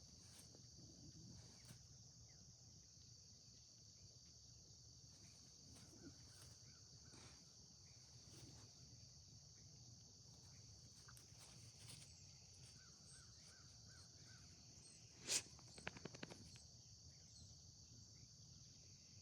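Faint natural ambience: a steady high-pitched insect chorus with a few faint bird chirps. A sharp click comes about fifteen seconds in, followed by a brief rattle.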